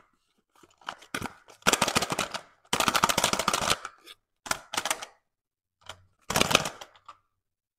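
Small cardboard toy box being handled and turned over in the hands: rapid rattling clicks in about five bursts of up to a second each, with the die-cast Tomica car-transporter toy shifting inside.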